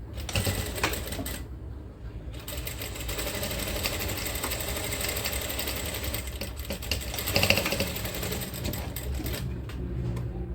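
Industrial electric sewing machine stitching a seam through folded cloth: a few short clicks first, then the needle mechanism running fast and steadily for about seven seconds before easing off near the end.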